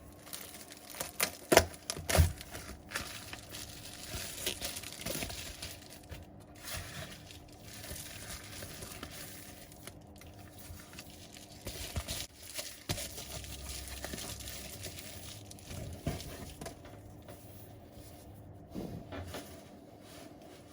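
Small clicks, taps and scraping of hand tools and phone parts being handled on a bench. The sharpest clicks come about one and a half to two seconds in, with rustling and scratching in between.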